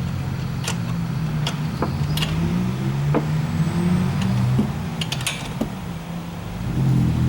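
Sharp metallic clicks, several seconds apart, from tools working the screw of a puller that draws the pulley off a water pump. A low, uneven hum runs under them.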